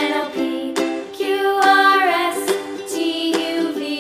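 Background music: a melody over regular plucked or strummed notes.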